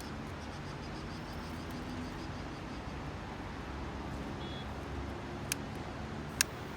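Steady low background noise with a faint hum, broken near the end by two sharp clicks about a second apart, the second louder.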